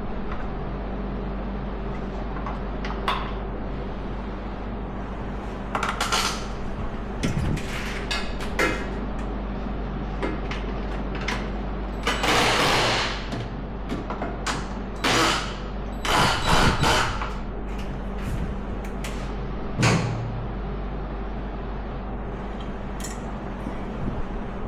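Scattered clunks, clicks and scrapes of tools and metal parts being handled, a few longer rasping scrapes around the middle, over a steady low hum.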